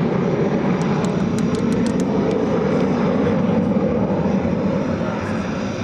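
Jet noise from a passing F-35C Lightning II's afterburning turbofan: a loud, steady rush of engine noise that eases off slightly near the end.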